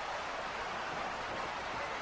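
Steady, even hiss-like noise with no distinct voices or impacts.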